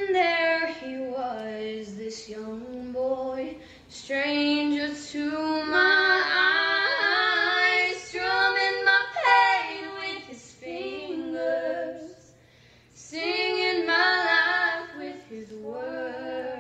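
A young woman singing solo and unaccompanied, in long held phrases with a short break a little past the middle.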